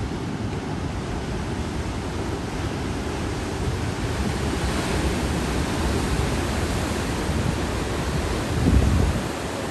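Ocean surf breaking and washing steadily, mixed with wind buffeting the microphone, with a stronger gust near the end.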